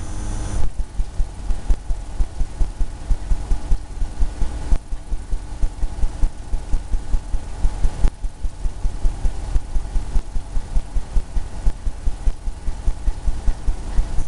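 Oil paintbrush dabbing and stroking on a stretched canvas, a steady rhythm of low thumps at about three to four a second.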